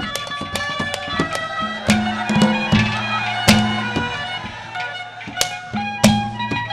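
Instrumental ragni accompaniment: a melody over a steady low drone, with frequent sharp drum strokes.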